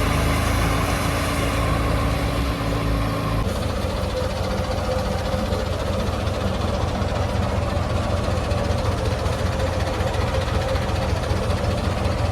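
Heavy diesel engine running steadily. About three and a half seconds in, its sound changes abruptly to a faster, throbbing note with a clear steady tone.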